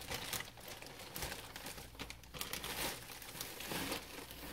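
Plastic bag crinkling and rustling in irregular bursts as it is handled and opened and its contents are pulled about.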